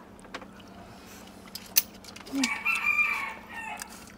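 Scattered sharp clicks and taps from people eating snails, with one louder crack just under two seconds in. About two and a half seconds in, a drawn-out crowing call of about a second sounds in the background.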